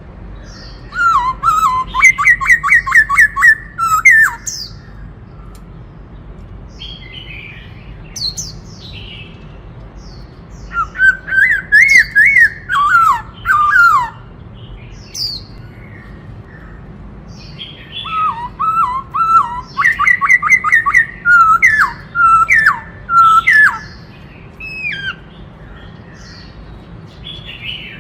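Black-throated laughingthrush singing: three loud phrases of rapid, repeated whistled notes, with short higher squeaky notes in the pauses between them.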